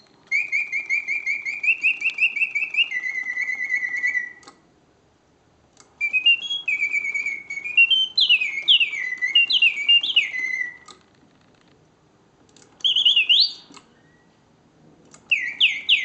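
Karl Griesbaum mechanical singing bird cage whistling its birdsong: rapid trills and swooping notes that rise and fall, in phrases broken by short silent gaps. The cage is set to its pause mode, which stops the song between phrases.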